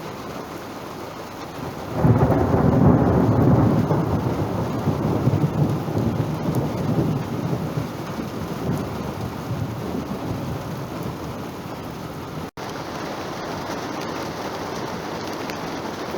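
A thunderclap breaks about two seconds in and rumbles, fading slowly over several seconds, over a steady hiss of rain.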